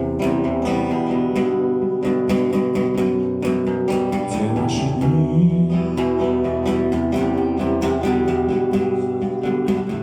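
Acoustic guitar strummed in a steady rhythm, an instrumental passage between verses of a song.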